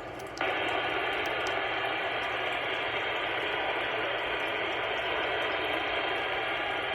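Static hiss from an Anytone AT-6666 radio's speaker on the CB band: a steady rushing noise that jumps louder about half a second in and then holds.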